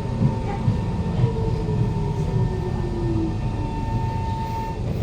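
Interior of a Kawasaki Heavy Industries C151 metro car slowing into a station, with a low, steady running rumble. The GTO-VVVF traction motor whine falls in pitch as the train brakes. A steady higher whine cuts off shortly before the end.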